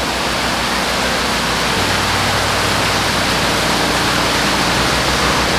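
Pumped water pouring steadily from an inflow pipe and splashing into a crowded fish tank, over a low steady hum from the farm's water-pump motor.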